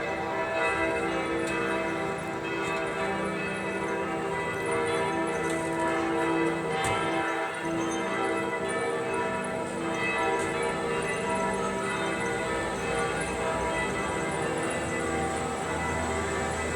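The bells of Florence Cathedral (the Duomo) ringing together continuously, many bell tones overlapping at a steady level.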